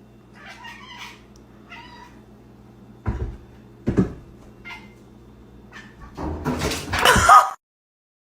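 A cat meowing twice, followed by two sharp thumps and a loud noisy stretch over a low steady hum, all cutting off suddenly near the end.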